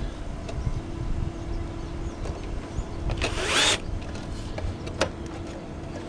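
Bosch cordless drill whirring in one short burst about halfway through, driving a screw through a screen gutter guard into the gutter, followed by a sharp knock or two.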